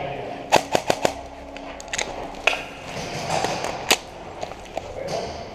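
Airsoft guns firing single shots: four sharp cracks in quick succession about half a second in, then single cracks at about two and a half and four seconds in.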